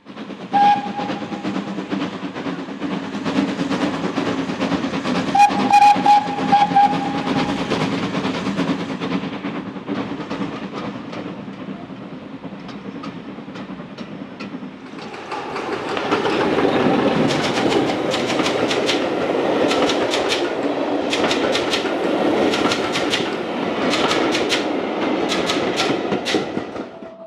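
Steam train: a short whistle near the start and a longer whistle about five seconds in, over steady running. From about fifteen seconds the train comes through louder, with a rapid run of sharp clicks from the wheels on the rails.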